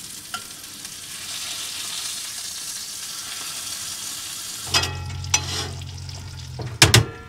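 Filet mignon steaks sizzling as they sear in butter in a skillet, turned with metal tongs. About two-thirds of the way through, the sizzle gives way to a steady low hum and a few metal clanks as the pan goes into the oven; the loudest clank comes near the end.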